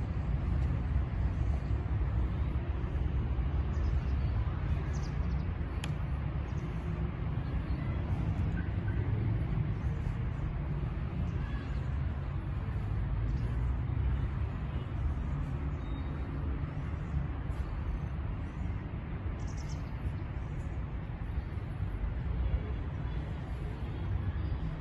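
Outdoor ambience: a steady low rumble, with faint high bird chirps here and there and a single sharp click about six seconds in.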